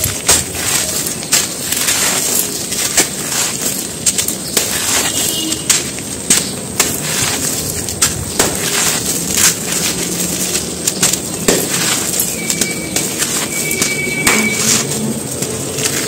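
Hands crumbling and squeezing dry, gritty red dirt and chunks of crumbly dried earth: dense, crisp crunching and crackling as the chunks break, with loose grit and dust pouring through the fingers.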